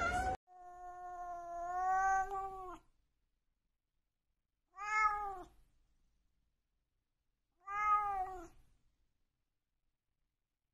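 Korat cat meowing three times: first one long, drawn-out meow, then two short meows that rise and fall in pitch, about three seconds apart.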